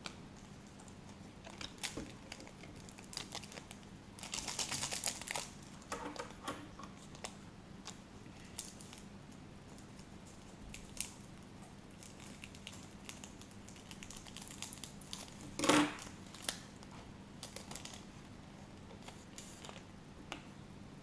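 Foil trading-card pack wrappers crinkling and tearing, with cards rustling and clicking as they are handled. Short scattered rustles, a longer stretch of crinkling about four seconds in, and the loudest rustle about three-quarters of the way through.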